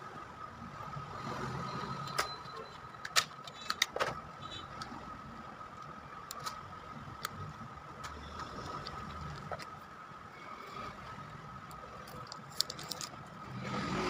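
Sharp little clicks and taps of plastic and small parts as the opened Jio Phone F271i is handled and its keypad circuit board lifted out, a few at a time, over a steady background hum with a constant high whine.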